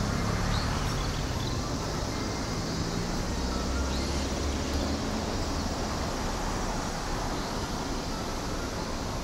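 Steady outdoor background noise with a low rumble that swells a few seconds in.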